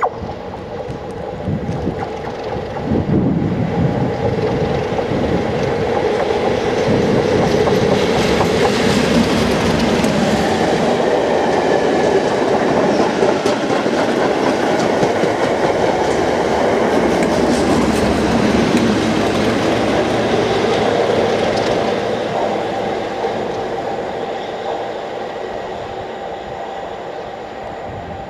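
A Network Rail test train passing, worked by two Class 37 diesel locomotives with English Electric V12 engines, with the yellow test coaches rolling by on the rails. The sound builds sharply about three seconds in, stays loud for most of the pass, then fades away over the last few seconds.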